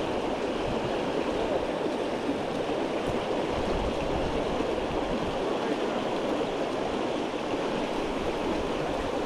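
Creek water flowing with a steady rushing noise.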